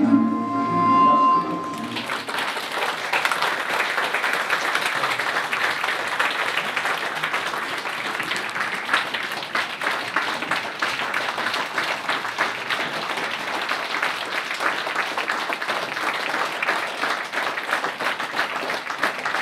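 A film's closing music, with a held tone, ends about two seconds in. A cinema audience then gives a standing ovation, clapping steadily for the rest of the time.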